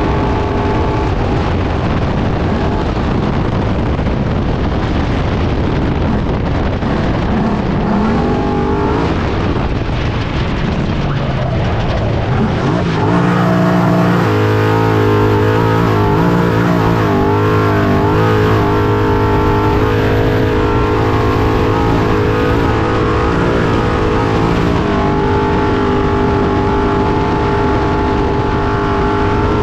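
Off-road race trophy truck's engine running hard under way, over a steady rush of tyre, dirt and wind noise. The engine note dips and climbs again about 8 to 12 seconds in, then holds high and wavering for about ten seconds before easing off.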